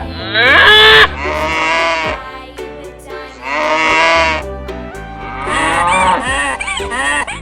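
Cow mooing several times in a row, each a long pitched call, over light background music.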